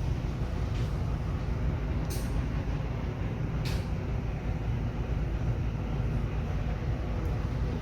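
Shop-floor ambience inside a large retail store: a steady low rumble with a few faint clicks or clinks, the first about a second in.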